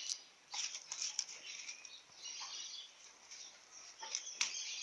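Irregular scuffing and scraping on stony ground, with sharp clicks just after the start and again near the end.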